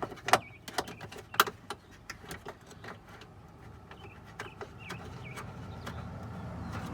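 Irregular clicks and knocks of bolts and a hand tool being handled while a trim panel is bolted back on, the two sharpest knocks in the first second and a half.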